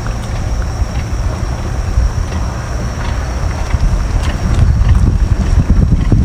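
Wind buffeting the microphone: a loud, gusty low rumble, with a faint steady high whine and a few faint clicks.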